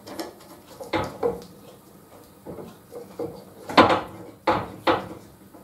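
Metal clunks and clinks from the steel blade-holder arm of a circular saw blade sharpener being handled and fitted on a steel bench: a handful of separate knocks, the loudest near four seconds in.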